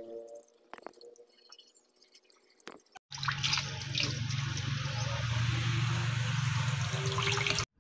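Kitchen tap water running and splashing onto beef tripe as it is rinsed by hand in a pot in the sink. Quiet splashes and wet handling at first, then about three seconds in a loud, steady rush of water that cuts off suddenly near the end.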